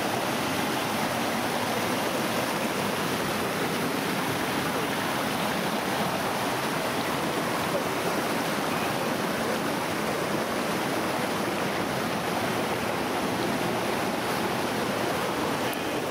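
Mountain creek rushing over boulders in small cascades: a steady, even rush of water.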